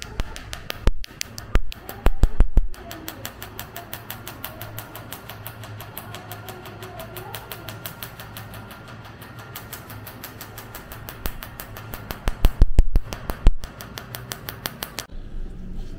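Tattoo-removal laser firing: a rapid, even train of sharp clicks, several a second. There are louder stretches of snapping about two seconds in and again near thirteen seconds, over a low steady hum.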